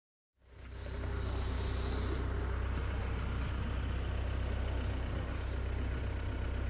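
Steady low engine rumble of a heavy vehicle running close by, starting half a second in, with a brief high hiss about a second in.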